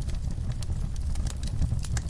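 Fire crackling: irregular sharp snaps and pops over a steady low rumble of burning.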